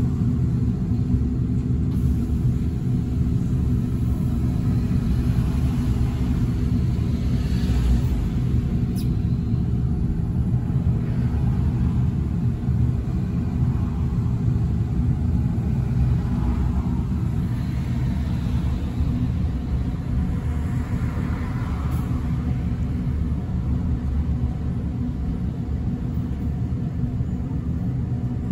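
Steady low rumble and hum inside an ADL Enviro400EV battery-electric double-decker bus standing in traffic, with cars passing outside now and then.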